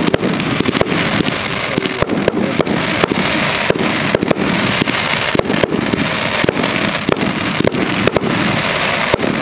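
Fireworks display: a rapid, unbroken string of sharp bangs, several a second, over a continuous crackling haze.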